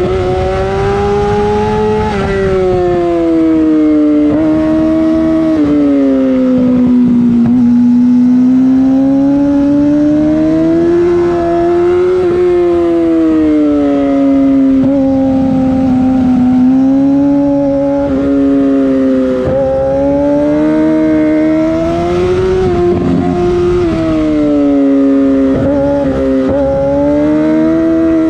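Yamaha R6's inline-four engine through a LeoVince full exhaust, heard onboard while riding. The engine note rises and falls with the throttle, with several abrupt pitch changes at gear shifts made with the quickshifter.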